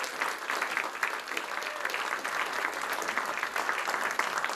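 Audience applauding: many people clapping together at a steady level.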